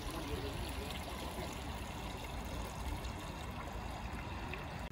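Water running steadily, a continuous trickling and splashing flow.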